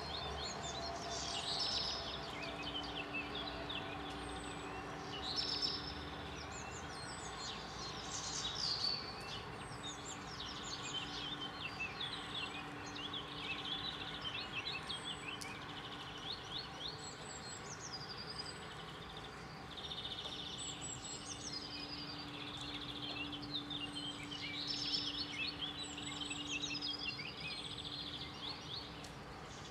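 Birds singing: short chirping and trilling phrases repeating every couple of seconds, over a faint steady hum.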